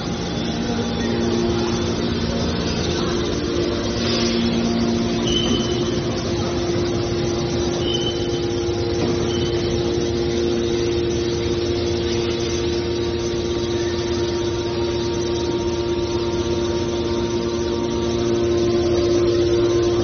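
The hydraulic power unit of a scrap-car baling press running: its electric motors and hydraulic pumps give a steady mechanical hum, with a few brief high squeaks over it near the middle.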